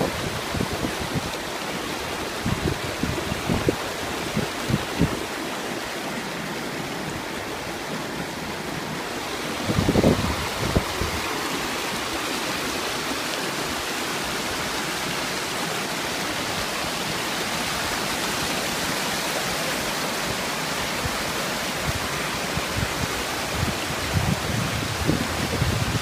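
Mountain stream rushing and splashing over rocks in a steady, even rush of water, with a brief low rumble about ten seconds in.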